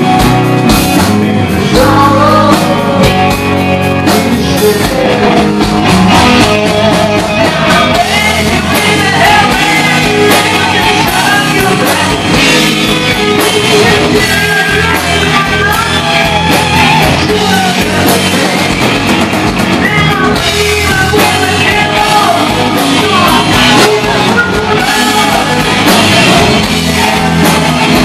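Live rock band playing loud: a male lead singer sings over electric guitar, bass guitar and a drum kit.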